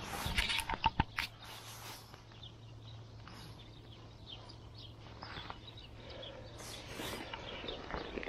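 Handling noise: a jacket and a padded nylon unhooking mat rustling as hands work over a landed pike, with a quick run of sharp knocks and clicks in the first second or so, then quieter with a few faint ticks and a low steady hum.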